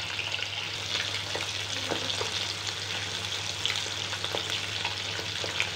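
Pieces of rohu fish shallow-frying in hot oil in a pan: a steady sizzle with scattered small pops and crackles.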